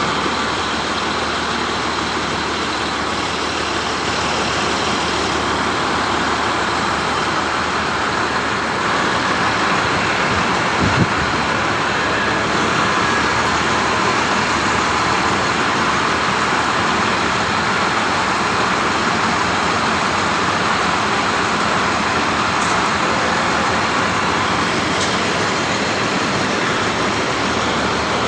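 DTH water-well drilling rig running, a steady loud rush of engine and air, with a single knock about eleven seconds in.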